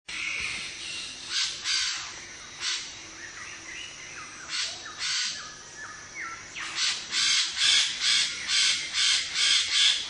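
Birds-of-paradise giving loud, harsh, crow-like calls. For the last three seconds the calls come in a rapid regular run of about three a second, and there are fainter gliding whistled notes in between.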